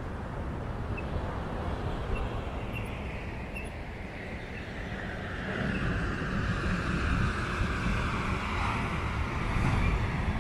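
Outdoor noise with wind rumbling on the microphone over distant surf, and a vehicle passing about halfway through, swelling and then falling in pitch as it goes by.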